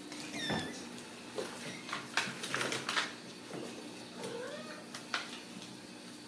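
Ragdoll kittens mewing: a short high-pitched mew about half a second in, and a lower, longer meow that rises and falls about four seconds in. Scattered taps and knocks from the kittens at play come between the calls.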